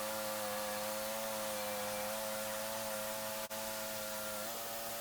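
Small engine running steadily at a constant speed, a smooth even hum, its pitch dipping slightly near the end.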